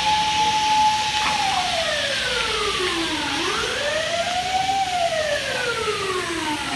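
Emergency vehicle siren wailing: a held tone that falls slowly, rises again about halfway through, then falls once more, over a steady rushing noise.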